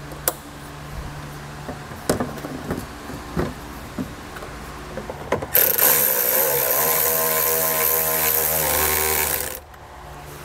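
A few handling clicks and knocks, then about five and a half seconds in a cordless power driver runs steadily for about four seconds, driving in a fastener to re-secure the taillight, and stops abruptly.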